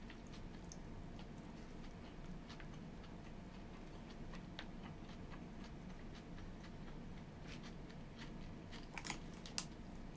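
Quiet chewing and small mouth clicks of a person eating a bento meal with chopsticks, with a couple of sharper clicks near the end.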